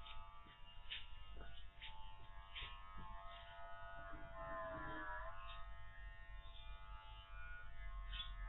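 Electric dog-grooming clipper buzzing steadily as it cuts through a Spanish water dog's thick, matted coat, its pitch sagging briefly about halfway through. A few light ticks sound in the first seconds.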